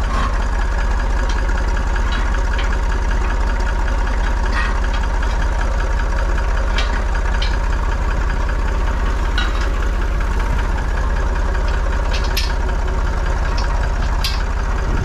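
Ferguson tractor engine idling steadily, with a few light metal clinks from the steel stand and its chain being fitted to the three-point hitch.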